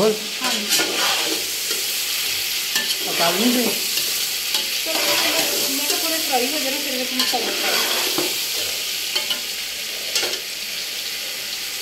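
Chicken pieces frying and sizzling in a large aluminium pot while a metal spatula stirs them, scraping against the pot, with a few sharp clinks of metal on metal.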